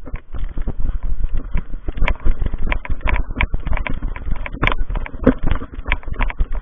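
Rapid, irregular thumps and crunches over a low rumble on the microphone.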